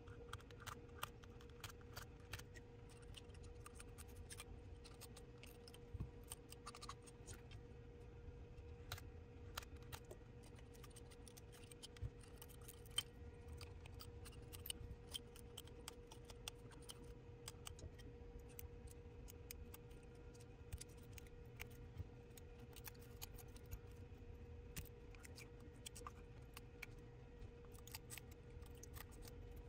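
Faint, irregular scraping and clicking of a blade chipping shattered back glass and adhesive off an iPhone 12 Pro Max's rear housing, over a steady faint hum.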